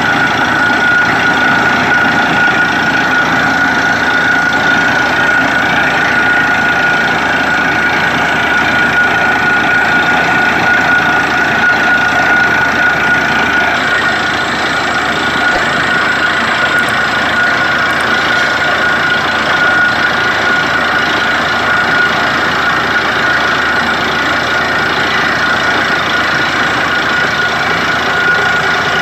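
Borewell drilling rig and its air compressor running steadily: a heavy engine drone with a constant high whine on top.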